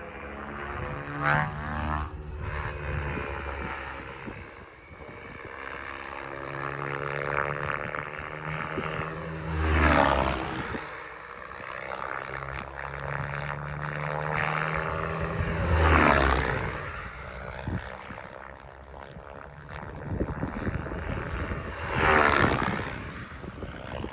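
Goblin Black Thunder 700-size electric RC helicopter with a bidirectional electric tail rotor, flying with a steady motor and rotor whine. The sound swells loudly three times, about six seconds apart, as the helicopter passes close.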